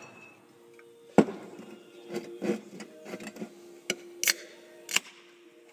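Aluminium beer can being handled and set down on a wooden surface: one sharp click about a second in, then several lighter clicks and knocks.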